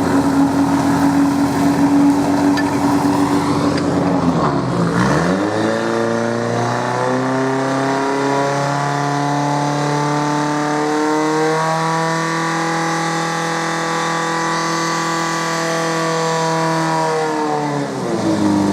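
Portable fire pump engine running at high revs during a firefighting-sport attack. Its pitch dips sharply about four to five seconds in and recovers, holds high and steady, then falls away near the end as the engine is throttled down.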